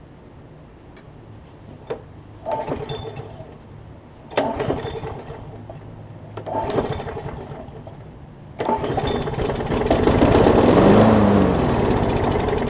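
Quantum Briggs & Stratton mower engine being pull-started four times after a shot of carb spray; on the last pull it catches and runs for a few seconds, rising and falling in pitch, then dies out without staying running.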